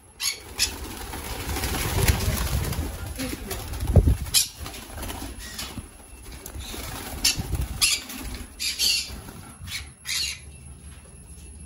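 Conures flapping their wings in a flight cage, with a few short, sharp calls.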